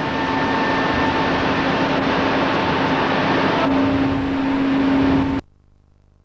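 Steady industrial rushing noise with a constant hum, one hum growing louder a little before the end. It cuts off abruptly about five seconds in, leaving only a faint low buzz.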